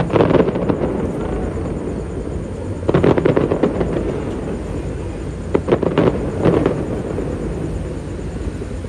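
Fireworks going off: three salvos of rapid crackling pops, at the start, about three seconds in and about six seconds in, over a steady low rumble.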